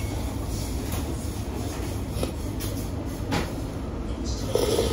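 Steady low background rumble of a small restaurant room, with a couple of faint light clicks of utensils against tableware.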